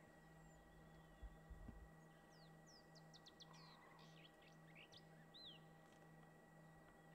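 Near silence: faint bird chirps, short quick calls clustered about three to five seconds in, over a steady faint electrical hum. A couple of low thumps come about a second and a half in.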